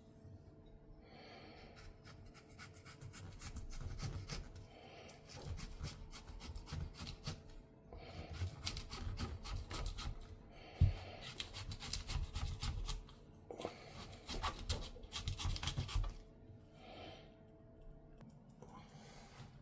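Intermittent bursts of close scraping and rubbing as a fresh radish is worked by hand, with one sharp knock about eleven seconds in.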